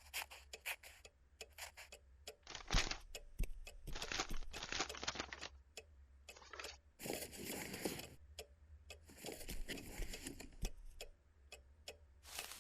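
Cartoon sound effects of making paper decorations: a quick run of short scraping, rustling and clicking sounds, some of them a second or so long.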